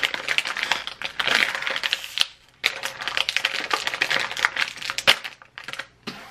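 Crinkling and crackling of a sealed plastic snack bag being pulled apart at its top seam. It gives way with one sharp pop about five seconds in as the trapped air rushes out.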